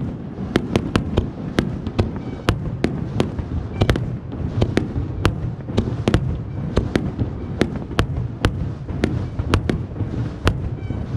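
Fireworks crackling and popping in an irregular run of sharp cracks, several a second, over a steady low rumble.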